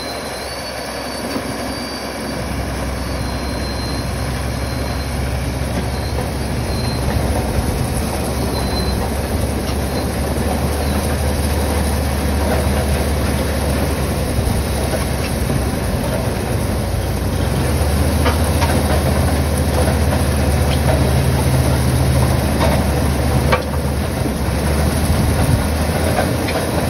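Opal drilling rig running under load as its large drill bucket bores into the ground. The engine hum grows heavier about two seconds in and again in the last third, with a few light knocks.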